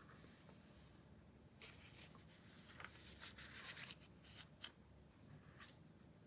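Faint rustling and scraping of paper as a hand turns and smooths the thin pages of a thick hardcover book, in several short strokes. A small sharp tap comes a little after the middle.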